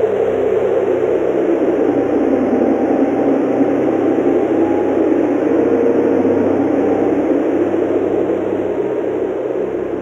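Strong snowstorm wind blowing steadily as a dense, low rushing noise, easing slightly near the end, with faint steady low tones underneath.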